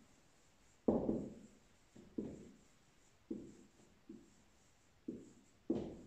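A dry-erase marker writing on a whiteboard: about half a dozen short, soft knocks as the marker presses against the board with the strokes of a word.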